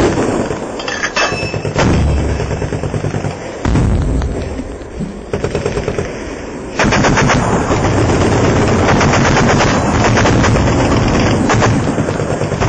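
Automatic weapon fire: scattered shots and bursts at first, then sustained rapid firing from about halfway through.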